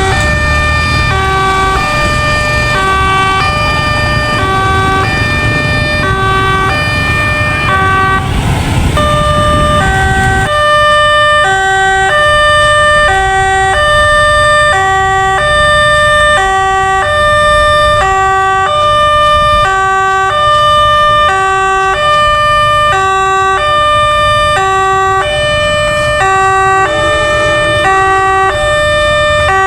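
Railway level-crossing warning siren sounding a hoarse two-tone alarm, alternating high and low about once a second. A passing train rumbles under it and cuts off about ten seconds in, after which the siren carries on alone.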